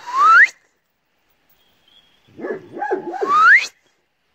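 A dog whining in two calls. Each ends in a high whine that rises sharply in pitch, one just at the start and a longer one about two and a half seconds in.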